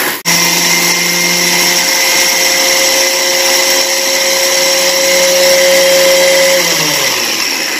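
Sujata electric mixer grinder switched on with a click, its motor running steadily with a whine as it grinds a dry mix of rice, coarse wheat flour and semolina in its steel jar. Near the end it is switched off and winds down, the pitch falling away.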